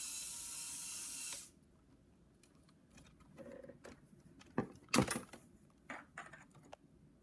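A geared-down Lego Power Functions M motor whirring steadily, then cutting off suddenly about a second and a half in. After that come a few sharp clicks and knocks of Lego parts and a Power Functions cable plug being handled.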